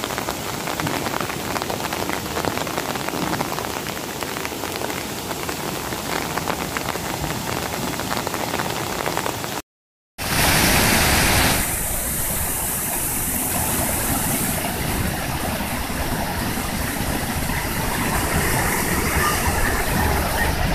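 Muddy floodwater rushing down a stream channel after heavy rain, a steady dense rush of water. The sound drops out for a split second about ten seconds in, then comes back louder for a moment before settling.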